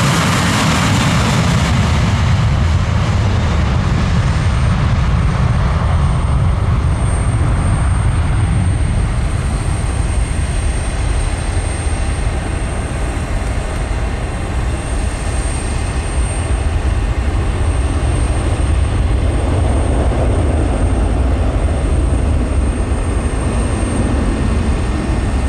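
Boeing 737-800's CFM56-7B jet engines running during departure: a loud, steady deep rumble whose brighter, hissing part eases over the first few seconds. A thin steady high tone runs from about six seconds in.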